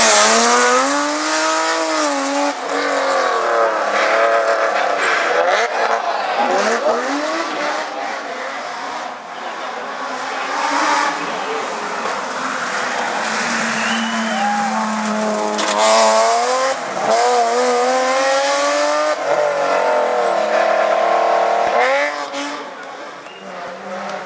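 Rally car engines driven hard on a stage, revving up and dropping back again and again through gear changes as the cars pass.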